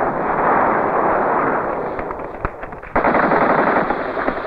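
Automatic gunfire in a battle: dense machine-gun fire that tails off toward the middle, a few separate shots, then a fresh burst starting suddenly about three seconds in.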